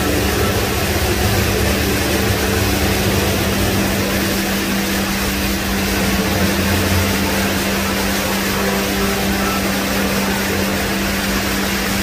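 Rain Vortex indoor waterfall pouring from the roof into its pool: a loud, steady rush of falling water with a constant low hum underneath.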